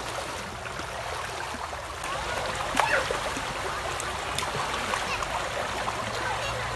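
Shallow river rushing over gravel and stones, with a couple of sharper splashes as a child slaps and throws the water.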